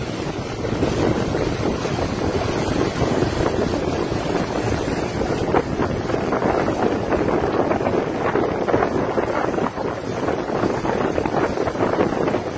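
Steady rush of wind buffeting the microphone and water churning past a moving boat.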